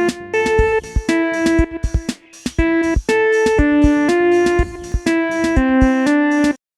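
Instrumental music: a melody of held notes changing every half second or so over repeated percussive beats, cutting off abruptly near the end.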